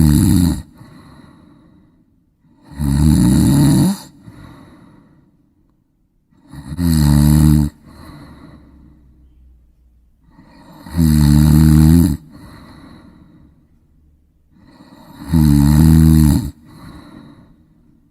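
A person snoring in a steady rhythm, about one snore every four seconds. Each is a loud, low rattling breath of about a second, followed by a softer breath out.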